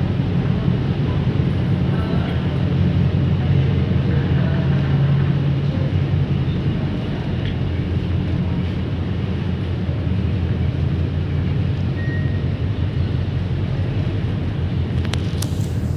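Steady low drone of an old ferry's engines, a vessel from around the late 1970s or early 1980s, heard on board while it is underway. A couple of sharp clicks near the end.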